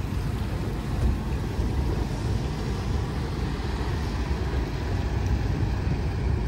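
Steady wind rumble on the microphone over the rush of sea water.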